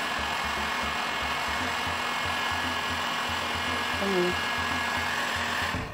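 Handheld electric heat gun running, a steady rush of blown hot air with a low motor hum, which cuts off suddenly near the end.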